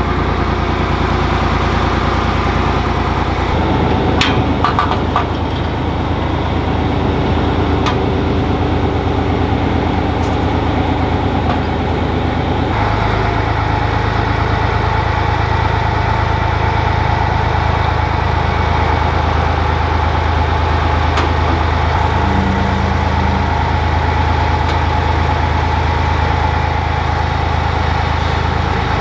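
Excavator's diesel engine running steadily, its note changing abruptly twice, with a few sharp metallic clicks over it.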